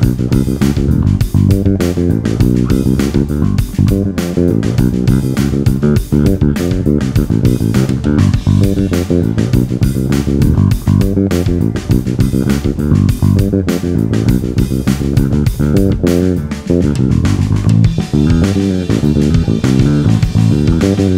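Electric bass played fingerstyle through a LeSuire Avalanche all-tube bass head and 2x10 cabinet: a busy line of quickly changing plucked notes.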